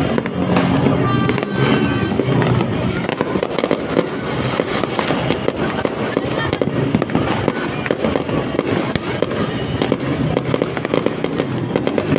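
Fireworks going off in rapid, dense succession: a continuous barrage of cracks and bangs, with music playing underneath.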